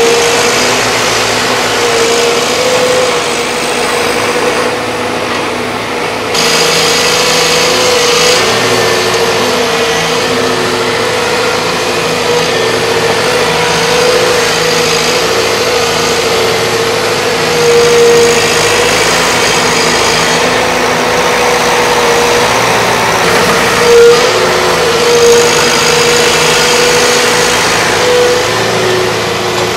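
Volvo excavators' diesel engines running steadily at work, the engine note wavering slightly up and down. A brighter hiss joins about six seconds in.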